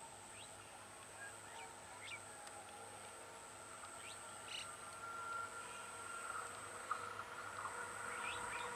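Birds chirping in short high calls several times over a steady high-pitched buzz, while an approaching electric multiple-unit local train grows steadily louder, its steady hum strengthening in the last few seconds.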